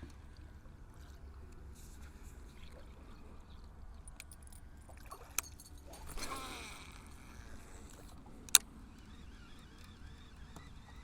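Fishing tackle working over a low steady hum as a baitcasting reel is cast for musky. There is a sharp click about five seconds in, then a whirring sweep that falls in pitch around six seconds in, and a louder sharp click at about eight and a half seconds.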